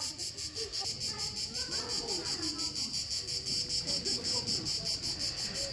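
Cicadas singing: a high, steady chorus that pulses rapidly and evenly.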